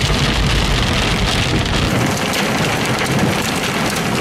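Heavy fall of small hail mixed with rain drumming on a car's roof and windscreen, heard from inside the car as a dense, steady patter of fine impacts over a low rumble.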